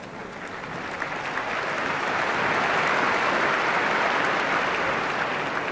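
Tennis crowd applauding after a point is won, swelling to a peak about halfway through and fading near the end.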